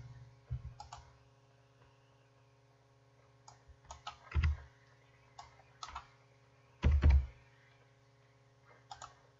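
Computer keyboard keystrokes and mouse clicks, a few scattered taps with pauses between them, two of them heavier, over a faint steady electrical hum.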